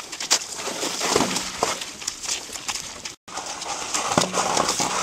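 Curly pony's hooves clopping along a snowy, muddy trail while the harness and driving cart rattle and jolt over bumpy ground. The sound cuts out for an instant about three seconds in.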